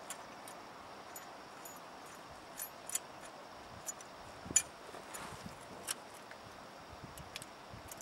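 Light metallic clicks and clinks as metal brake pad retaining clips are fitted onto disc brake pads at the caliper, a few scattered ticks a second, the sharpest about halfway through.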